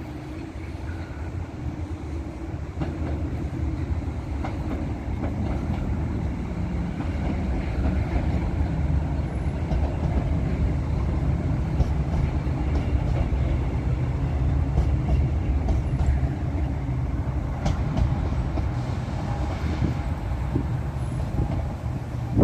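Northern Ireland Railways diesel multiple unit passing over a bridge: a steady low rumble of engine and wheels that builds over the first few seconds and then holds, with a few faint clicks.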